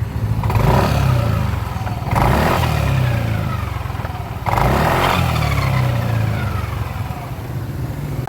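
Yamaha NMAX 155 scooter running on the road, surging three times under throttle, with a falling whine as the throttle is let off after each surge. A whine on throttle release is the reported fault, which the mechanic places in the rear final gear.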